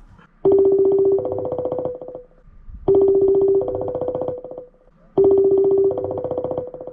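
Telephone ringing, heard three times: each ring is a buzzy two-note tone that steps up from a lower note to a higher one and lasts about two seconds. The call goes unanswered.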